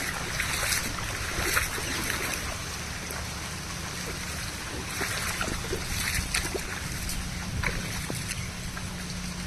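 Monsoon rain falling and overflowing lake water running, a steady rush dotted with many small splashes and drop hits.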